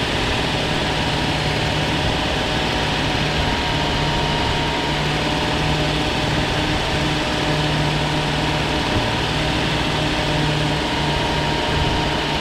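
A 2001 Chrysler Town & Country minivan's V6 engine idling steadily with the heater running, circulating coolant to bleed air from the cooling system after a heater hose repair.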